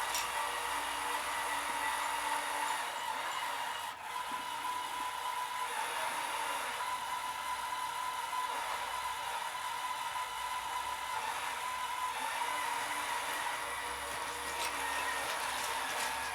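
Liebherr PR 754 crawler dozer running steadily, its engine and drivetrain giving a constant high whine over a rumbling clatter, with a brief drop about four seconds in.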